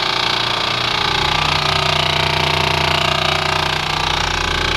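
Air-conditioner compressor running with a loud, steady, rapid rattling buzz: the obnoxious loud noise that marks a fault in the compressor.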